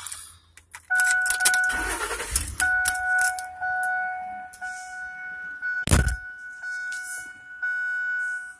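A vehicle's dashboard warning chime sounds as a steady tone with short breaks. There is a brief low rumble about two seconds in and one heavy thump about six seconds in.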